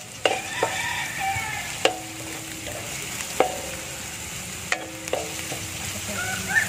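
Chopped onion and garlic sizzling in hot oil in a large aluminium wok while a wooden spatula stirs them. Five times the spatula knocks against the wok, and each knock leaves the pan ringing briefly.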